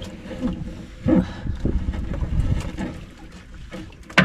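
Sea water sloshing and splashing around a small fishing boat, with a sharp knock near the end.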